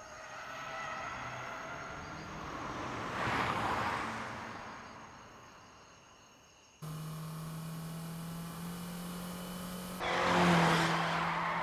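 Cars speeding past. A rush of engine and tyre noise swells and fades about three to four seconds in. After a sudden cut, a steady engine drone runs, and a second car rushes past, loudest about ten seconds in.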